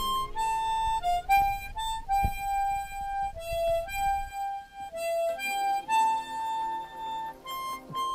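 Background music: a slow melody of single held notes on a reedy wind instrument, with a low rumble underneath that fades out about halfway through.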